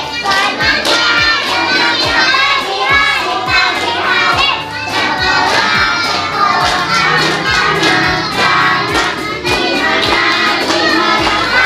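A group of children and adults singing together, with steady rhythmic hand clapping keeping the beat.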